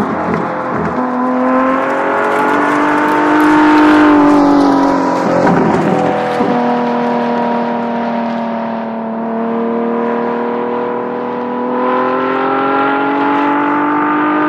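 2014 LaFerrari V12 engine running under load. Its note climbs and drops, breaking about a second in and again around five to six seconds in, then holds fairly steady and rises slowly.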